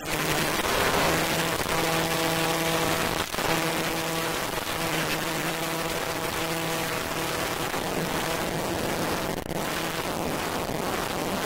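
Dark ambient dungeon-synth track: a dense, steady rain-like noise wash, with a low held synth drone sounding in long notes over it that drops out about eight seconds in.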